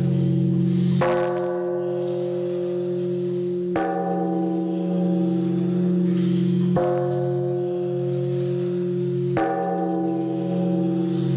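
Large temple bell struck with a hanging wooden log, four strikes about three seconds apart, each ringing on with a deep hum under the next.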